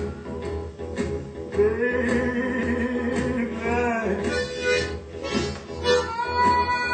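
Blues harmonica (harp) playing with bent and held notes, including one long held note in the middle.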